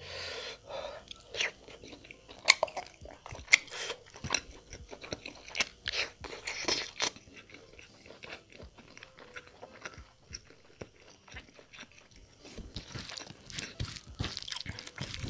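Close-miked chewing of mutton curry and rice, with many sharp wet mouth clicks and smacks. Near the end comes a softer wet squishing as fingers mix rice into the curry gravy.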